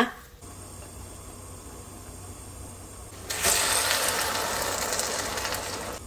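Raw laver seaweed sizzling in hot sesame oil in a steel pot: a loud, even hiss that starts suddenly about three seconds in, after a faint steady low hum.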